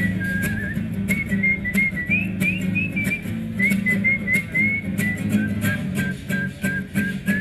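Background music: a whistled melody of short, slightly gliding notes over a plucked, strummed acoustic guitar.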